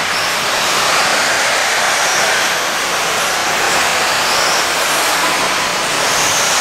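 Electric RC racing buggies running a race on a dirt track: a steady rushing noise of motors, gears and tyres, with a few brief high whines as cars accelerate.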